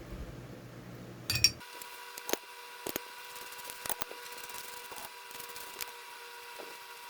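Light, scattered clicks and taps of a tobacco pipe being handled during cleaning, over a faint steady hum, with a sharper clatter about a second and a half in.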